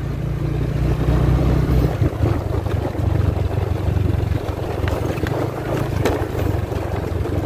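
Small motorbike engine running steadily while riding along a rough dirt track, with wind noise on the microphone. The engine note shifts briefly about two seconds in, and a few light knocks sound from the bumpy ride.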